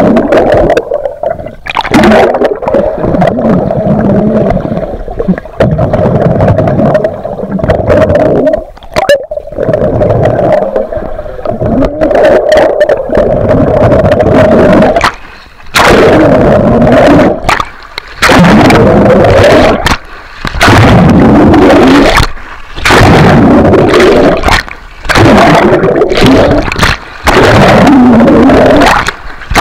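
Water heard underwater in a swimming pool: close, muffled rushing and bubbling as a swimmer moves and blows bubbles. From about halfway it comes in surges roughly every two seconds, with brief dips between them.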